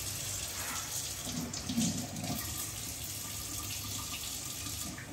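Water running steadily from a tap into a sink while hands are washed under it.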